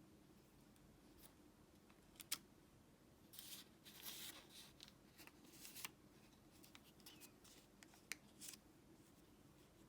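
Origami paper being handled and creased by hand: soft rustles with a few sharp crinkles and clicks, busiest between about three and six seconds in.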